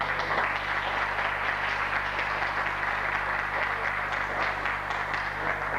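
Audience applauding steadily, a dense crackle of many hands that starts to die away at the very end.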